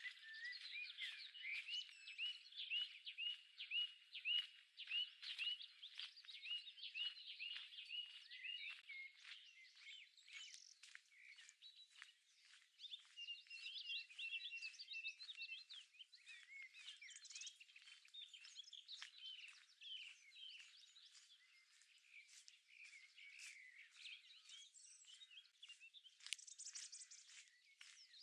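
Several wild birds singing at once, in overlapping chirps and short phrases. For the first eight seconds or so, one bird repeats the same short note about twice a second.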